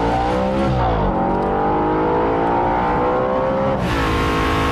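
Audi RS5 Cabriolet's V8 engine accelerating hard. The revs climb, dip briefly with a gear change about a second in, then climb steadily again. Near the end the note drops suddenly to a steady, lower pitch.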